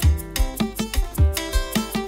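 Background music: plucked guitar over a steady beat with a deep bass thump.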